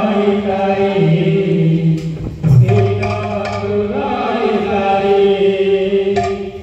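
Devotional kirtan chanting: several voices sing long, held notes together, stepping to a new pitch every second or two.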